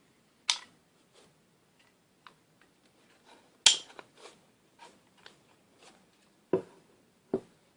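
Sharp clicks and knocks with lighter ticks between as a Vanguard GH-100 pistol-grip ball head is handled, its parts clicking. There are four distinct knocks, the loudest about halfway through.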